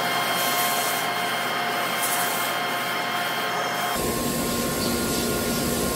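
Bench grinder running steadily while a small diesel injector nozzle part is held against its spinning wheel to buff off one last spot.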